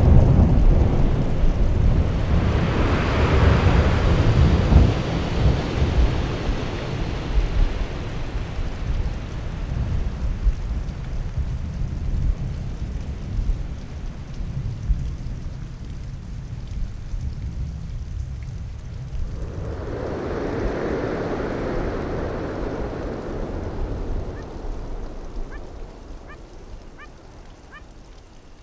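Ocean surf washing over a rocky shore, with a heavy low rumble; a wave rushes in about 3 s in and another about 20 s in, then the sound fades toward the end.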